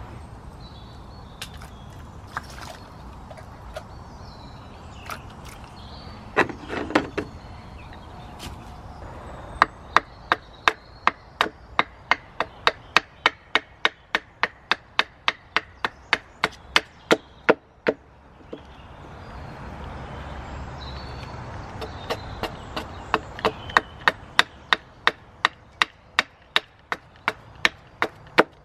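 Wood being chopped with quick, even strokes: sharp wooden knocks about three to four a second, in two long runs with a short break between them.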